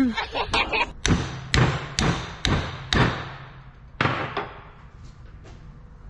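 Hammer blows on a bent metal door hinge from a John Deere Gator, about two a second, each ringing briefly, stopping about four and a half seconds in: the hinge is being straightened in a vice.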